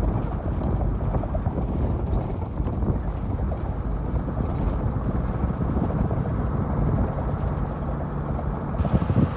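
Safari vehicle driving across rough grassland: a steady low rumble of engine and tyres, with some wind on the microphone.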